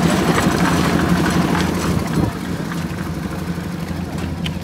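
Engine of a concrete mixer running steadily with an even low hum. It becomes quieter about two seconds in.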